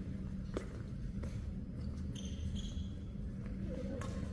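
A few sharp single taps of a shuttlecock being struck with badminton racquets, well spaced, over the steady low hum of a large hall; a brief high squeak about two seconds in.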